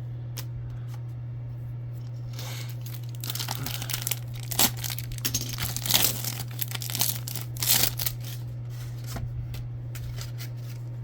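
A trading-card pack wrapper being torn open and crinkled, in an irregular run of rustling and crackling from about two seconds in until about eight seconds in. A steady low hum runs underneath.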